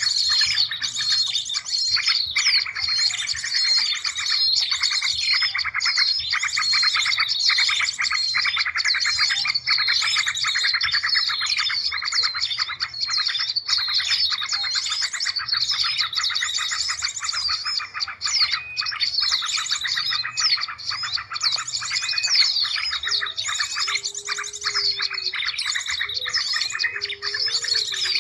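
Bird-lure recording of many small songbirds chirping and trilling at once, a dense, unbroken chorus of overlapping high calls used to draw small birds in. A few lower gliding notes come in near the end.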